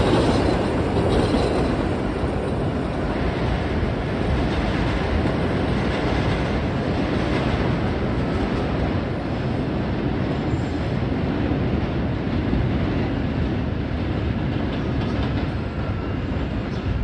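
New York City subway trains running on elevated steel track. Loudest in the first couple of seconds as a train runs close by, then a steady noise as another train comes across the junction.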